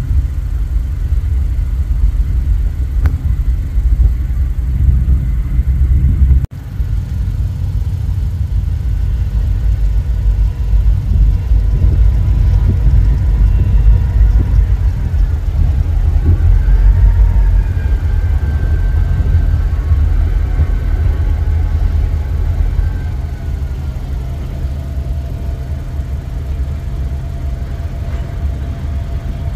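Two CSX diesel-electric locomotives running with a slow-moving freight train, a loud steady low engine rumble. Faint high whining tones bend in pitch partway through and hold steady near the end. The sound cuts out for an instant about six seconds in.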